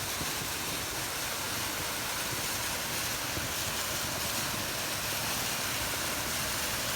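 Waterfall rushing: a steady, even sound of falling water that does not change.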